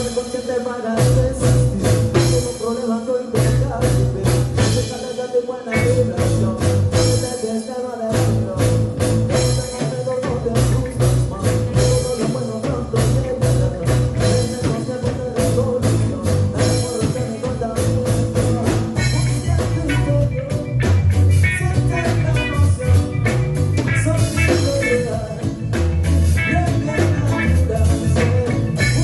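A band playing an upbeat song with a steady beat, bass and guitar, and some singing.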